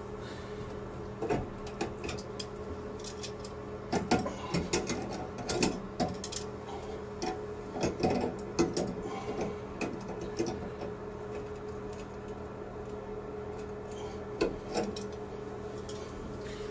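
Tongue-and-groove pliers clicking and scraping against a chrome angle-stop shut-off valve as it is turned fully closed, a string of irregular metal clicks and knocks that stop near the end. A steady low hum runs underneath.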